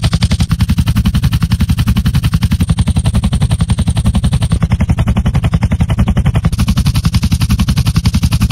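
A fast, even train of sharp clicking pulses, about ten a second: a test signal rendered through head-related transfer functions for headphone 3D listening. Its tone shifts about halfway through and again near three-quarters of the way, as the sound is placed in a different direction.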